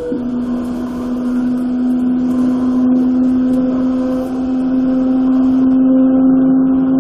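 Toei 5300 series electric train's VVVF inverter and traction motors whining as the train accelerates. The whine changes from several tones to one strong tone right at the start, then climbs slowly in pitch over the rumble of wheels on rail.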